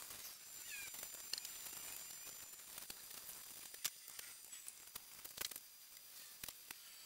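Faint rubbing and rustling of a polish rag working beeswax into a teak chair frame, with scattered small clicks and crinkles over a steady hiss. Two sharper clicks stand out, one about four seconds in and one a second or so later.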